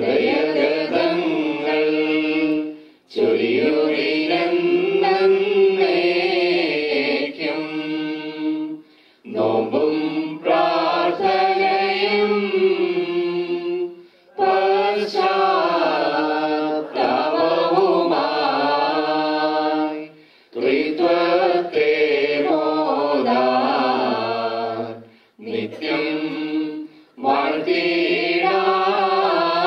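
Voices singing a slow Malayalam liturgical hymn for the dead, line by line in phrases of a few seconds with short pauses between them.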